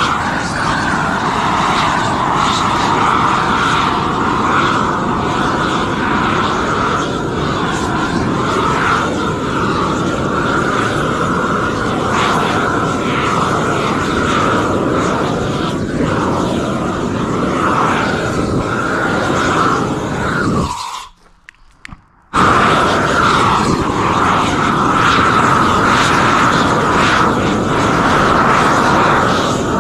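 Propane weed torch burning at full blast, a loud steady rushing of the flame. It cuts out for about a second and a half a little past two-thirds of the way through, then comes back at once.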